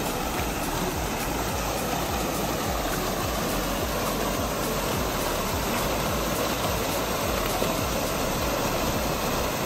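Creek water pouring out of two corrugated metal culvert pipes and splashing into a pool below as whitewater: a steady, loud rushing.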